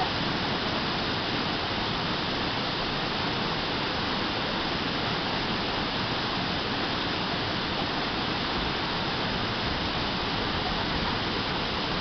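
Steady rush of a waterfall about 8 to 10 metres high pouring into a plunge pool.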